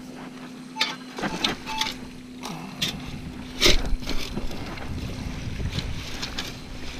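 Minelab CTX 3030 metal detector giving a few short beeps over a target, amid irregular splashing and sloshing of shallow water as the spot is dug, the loudest splash a little under four seconds in.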